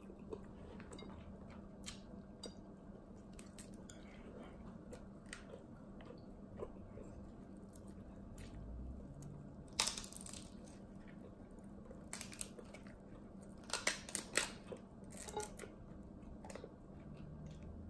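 Pre-split king crab leg shells being cracked and pulled apart by hand, with wet crackling, small clicks and some chewing. The loudest cracks come about ten seconds in and in a quick cluster around fourteen seconds.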